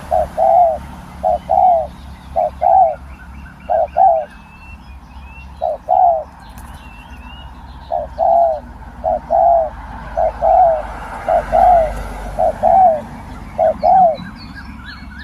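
Spotted doves cooing: a steady series of short, low coos, often in close pairs, about one per second. Fainter high chirps from small birds sound above them.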